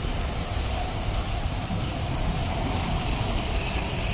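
A motor scooter and a motorcycle passing on the road, their engines running under a steady low rumble.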